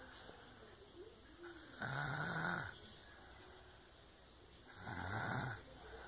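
A sleeping child snoring loudly: two long, rasping snores about three seconds apart, with faint breaths between them.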